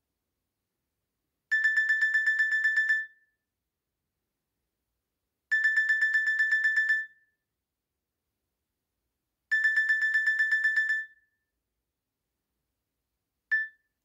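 A Nokia E66 phone's preloaded 'Clock alert 1' alarm tone plays through the phone's speaker: a fast, high-pitched beeping in three bursts of about a second and a half each, spaced about four seconds apart. A fourth burst cuts off just after it starts, near the end.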